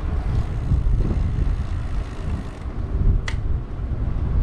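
Wind buffeting the microphone of a rider's camera while cycling, a low uneven rumble, with a brief high squeak about three seconds in.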